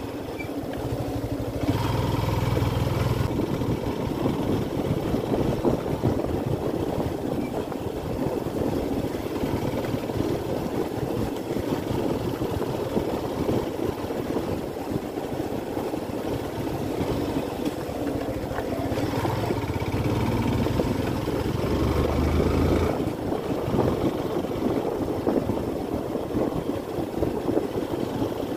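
Motorcycle engine running as it is ridden along a road, with steady wind rush on the microphone; the low engine rumble grows heavier about two seconds in and again around twenty seconds.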